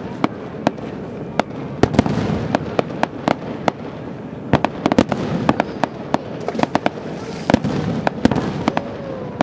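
Fireworks display with aerial shells bursting in quick, irregular succession: many sharp bangs over a steady wash of noise.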